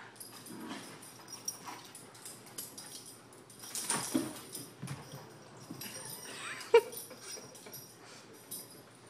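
Two puppies, a Jack Russell terrier and a mastiff, play-fighting: short whimpering dog noises and scuffling on a rug. A single sharp cry about seven seconds in is the loudest sound.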